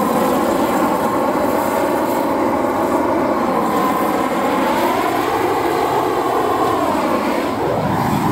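Leaf blower engine running steadily at high speed with the blast of air, its pitch sagging and rising again a couple of times as the throttle changes.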